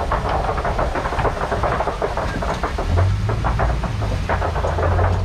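Safari truck driving, its engine running with a steady low drone under a constant irregular rattling and clattering of the vehicle. About three seconds in, a deeper, steadier engine hum sets in.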